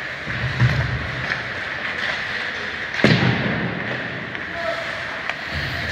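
Ice hockey play in an arena: a dull thump just under a second in, then a single sharp crack of a hockey puck impact about three seconds in, ringing in the rink, over steady rink noise.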